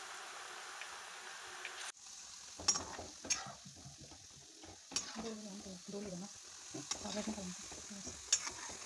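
Pakoras deep-frying in oil in a steel kadhai, with a steady sizzle. After a cut about two seconds in, a perforated metal skimmer stirs them in the pan, giving sharp clinks against the metal every second or two over the sizzling.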